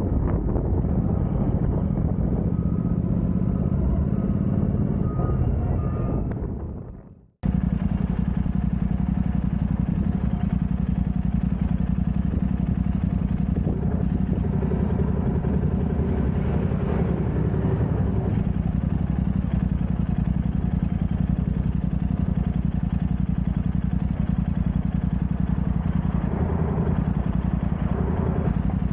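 Royal Enfield Continental GT motorcycle engine running steadily. The sound fades out about six seconds in, then cuts straight back in a moment later.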